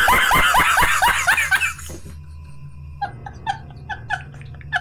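A man laughing hard in loud, rapid bursts. About two seconds in it drops away, then comes back as thinner, higher giggles in quick short bursts.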